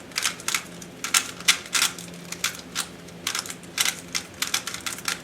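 GAN 356i smart speedcube being turned fast, its plastic layers clacking in quick, irregular turns as it is scrambled.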